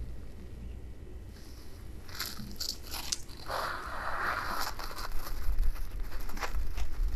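Snow crunching and crackling under a boot as it presses down into a snow-covered mound, with a longer, denser crunch about three and a half seconds in.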